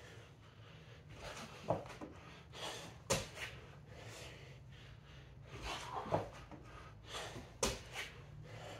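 A man breathing hard while recovering between exercise sets. Four short, sharp breaths stand out, with softer breathing between them.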